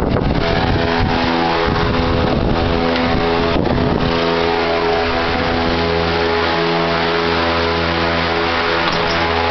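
Greenhouse exhaust and air-circulation fans running: a loud steady hum with several steady tones, the low part of the hum growing stronger about four seconds in.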